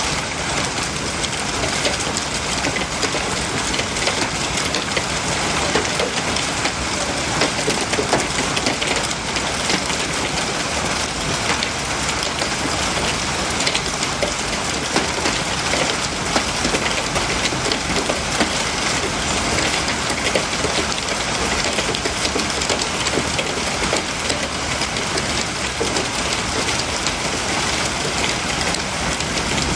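Hail pounding down in a heavy storm: a dense, steady clatter of countless small impacts over a rain-like hiss.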